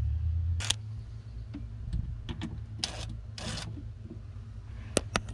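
Cordless DeWalt brushless driver whirring in short bursts, three times, as a hose clamp is undone on a boat's bilge pump hose. Two sharp clicks come near the end.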